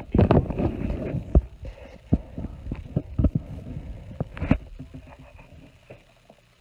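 A phone that is recording is handled and set down on its mount, giving close rubbing and bumping against the microphone, then a string of sharp knocks, the loudest about a second and a half in and again at about four and a half seconds. Faint rustling of card stock follows near the end.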